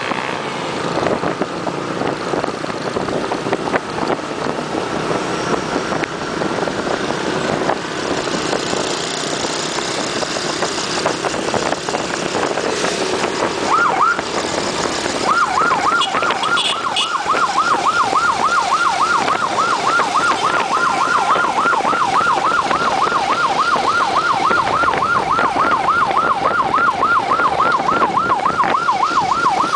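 Escort siren in fast yelp mode: a rapid rising warble, about three a second, that starts about halfway through and keeps going steadily. Under it, road and wind noise from riding in a motorcycle convoy.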